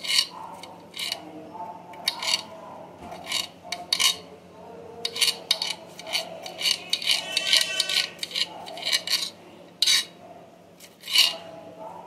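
Small knife slicing a green bell pepper into thin diagonal strips on a cutting board: irregular crisp cuts and clicks of the blade on the board, a few a second, with a quicker run of strokes about two-thirds of the way through.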